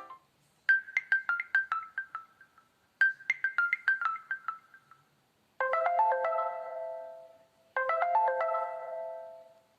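Preloaded Nokia Lumia 521 phone tones: a quick run of plucked, descending high notes plays twice. Then a ringing chord is struck twice and fades away each time.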